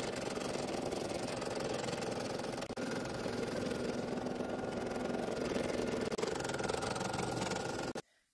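Computerized embroidery machine stitching out a design on faux leather: a steady, rapid run of needle strokes that dips briefly twice and stops abruptly near the end.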